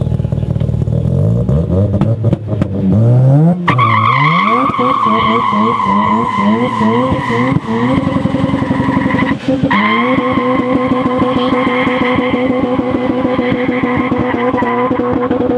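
Rotary engine of a Mazda REPU pickup revving up and down, then launching hard about four seconds in with the rear tyres spinning and squealing under the engine's high-rev note. The squeal breaks off briefly about two-thirds through and picks up again as the engine holds high revs.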